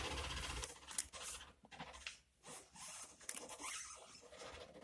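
Car's scissor jack being cranked with the lug wrench as its handle, lifting the car: faint, uneven scraping.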